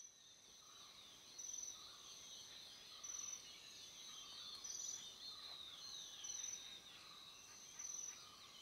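Faint forest ambience: a high, thin call repeating about every second and a half over a soft hiss, with scattered bird chirps.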